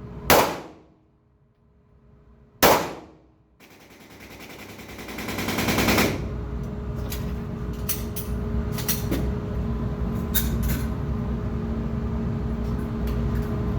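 Two 9mm pistol shots about two and a half seconds apart, each a sharp crack with a short echoing tail. After that, a steady noise rises over a couple of seconds and stays, with scattered faint clicks through it.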